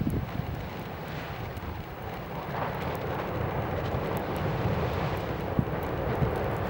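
Basalt lava flow front creeping forward, heard as a steady low rumble with faint scattered crackling ticks, under wind buffeting the microphone.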